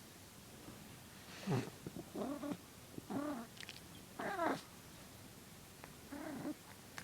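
A cat making about five short, soft mewing calls, each arching up and then down in pitch, spaced roughly a second apart.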